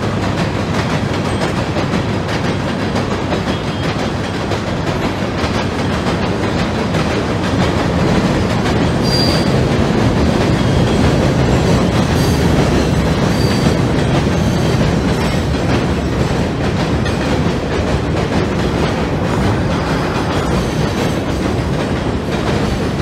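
HO scale model freight cars rolling across a model trestle bridge: a steady rumble with a fast clatter of small wheels over the rail joints, and a couple of brief faint wheel squeaks partway through.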